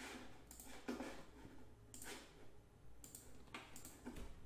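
Faint clicks of a computer mouse and keyboard being used: about half a dozen separate clicks, roughly a second apart.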